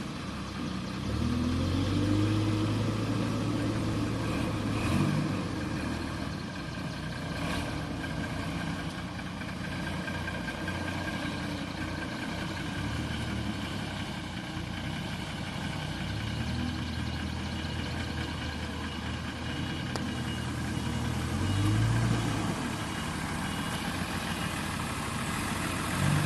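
Heavy diesel engine running steadily, revving up and settling back a few times, most strongly near the start and again near the end.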